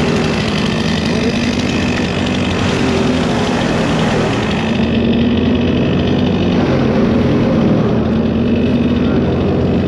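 A large engine running steadily at an even speed.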